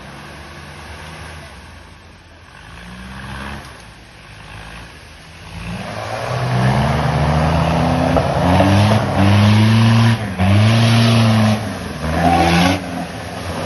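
Off-road 4x4 engine revving: low and quieter for the first few seconds, then loud repeated revs from about six seconds in, the pitch climbing and dropping with each push of the throttle.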